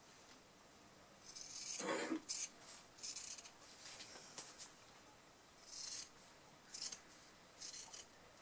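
Sewing scissors snipping through several layers of fabric in a series of short cuts with pauses between them.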